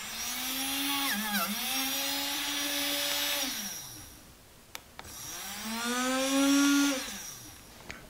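Small DC motor of a cordless rotary multitool, out of its housing, spinning up with a high whine, briefly dipping in pitch about a second in, then winding down; after a couple of clicks it spins up again and winds down near the end. It runs again when reconnected with reversed polarity, though it would not turn after a cutting disc jammed.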